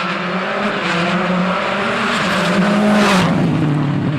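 WRC rally car engine running hard at high revs as the car passes, with tyre and road noise. It gets louder up to about three seconds in, then the engine note drops away.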